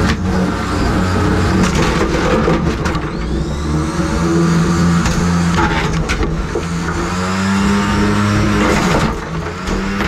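Spinning weapon of a 3lb combat robot whirring, broken by a string of sharp hits and clattering plastic as it smashes a coffee maker apart; the weapon's pitch rises around seven seconds in.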